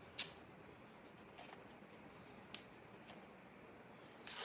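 Blue painter's tape being pulled off the roll and torn into short strips: a sharp rip about a quarter second in, a few lighter ticks, and a longer rasp of tape peeling off the roll near the end.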